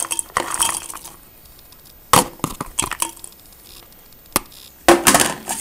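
Germinated beans being moved by hand into a plastic cup on a stainless steel counter, heard as a few scattered sharp clicks and clatters with quiet gaps between them.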